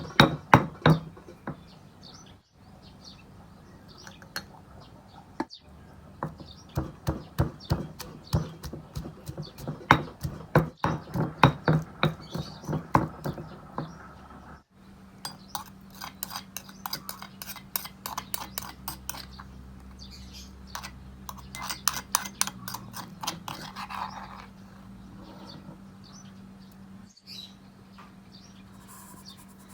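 Quick, evenly repeated knocks of a kitchen knife chopping on a cutting board, coming in several runs that start and stop abruptly, over a faint steady hum.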